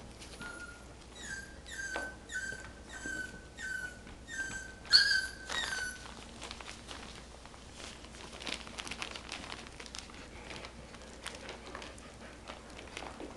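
Puppy whining: a run of about eight short, high, evenly spaced whines, ending in a louder, sharper yelp about five seconds in. After that, only faint clicks and rustles of puppies moving about.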